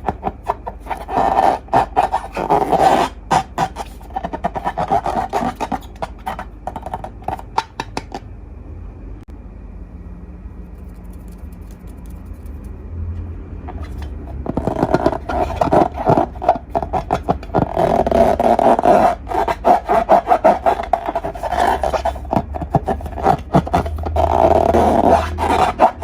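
Slime being squished and mixed by hand, a dense run of sticky crackling clicks and pops that is quieter for a few seconds in the middle.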